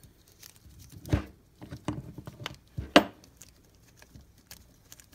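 A handful of separate knocks and clicks from handling the metal body of an air impact wrench on a wooden workbench. The sharpest come about a second in and about three seconds in.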